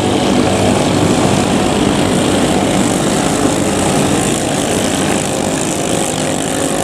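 Small 7 HP long-tail racing boat engines running hard at speed, a steady loud engine drone that eases slightly near the end.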